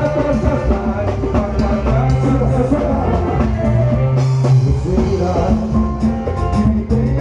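Live band music: a drum kit and percussion keeping a steady beat under bass and held chords.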